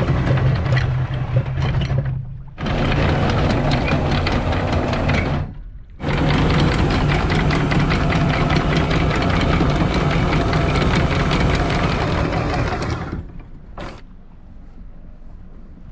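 Electric anchor windlass at the bow hauling in anchor chain, run in three goes: it stops about two seconds in, restarts, stops again briefly near the middle, then runs for about seven seconds before cutting off near the end.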